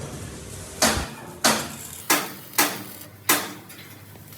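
Hammer blows on steel, five strikes at an uneven pace of roughly one and a half a second, each with a short ring.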